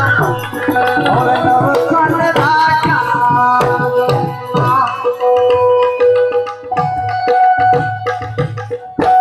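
Santvani devotional folk music: tabla drumming under held, steady instrumental notes.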